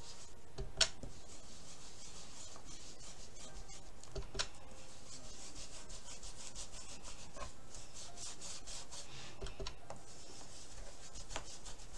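An ink blending tool scrubbing ink through a plastic stencil onto paper, a steady dry rubbing hiss made of quick strokes. Two sharp clicks stand out, about a second in and about four seconds in.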